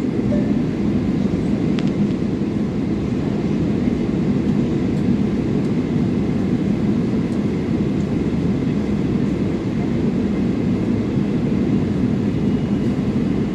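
Steady low cabin hum inside a taxiing Boeing 777-300ER, its GE90-115B engines at low taxi power.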